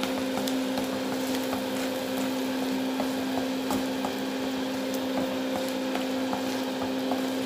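Thick masala paste sizzling gently in a pan as a spatula stirs and scrapes through it, with scattered light scrapes and taps, over a steady low hum.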